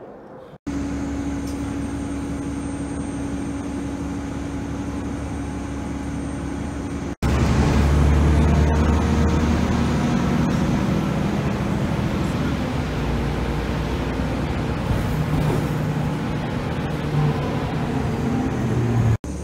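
Steady low rumble and hum of a moving road vehicle heard from inside the cabin. A cut about 7 seconds in brings a louder, deeper stretch of ride noise.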